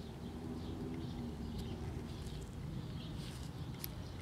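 Quiet background of a low steady rumble with a dove cooing faintly, and a few light clicks near the end as the small tuning capacitor and its plastic dial are handled.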